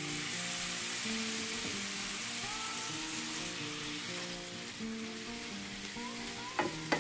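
Freshly added sliced tomatoes sizzling in hot oil in a frying pan with onions and spices, the sizzle loudest in the first few seconds. Two sharp knocks come close together near the end.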